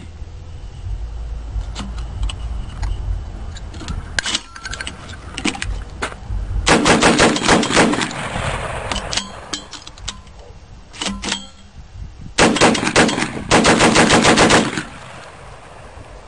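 Belt-fed 12-gauge shotgun upper on an AR-15/M16 lower firing two rapid strings of shots, the first about a second long, the second about two seconds with a brief break in it. Before the first string there are scattered clicks and knocks of handling.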